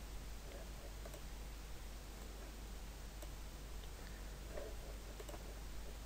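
A few faint computer mouse clicks over a low steady background hiss and hum.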